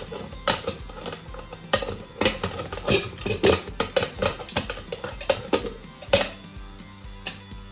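Stainless steel stovetop pressure cooker lid being fitted and twisted shut on the pot: a series of irregular metal clanks and scrapes.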